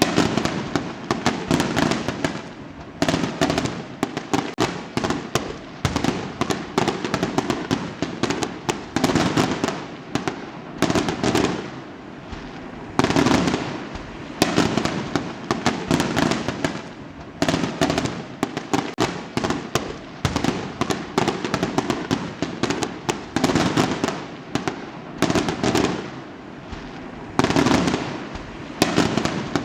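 Fireworks going off one after another, about every one to two seconds: each shell bursts with a sudden bang and trails off in a spray of fine crackles.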